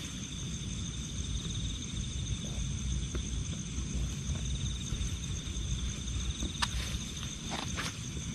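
Night insects trilling steadily at two high pitches over a low rumble, with a few faint clicks near the end.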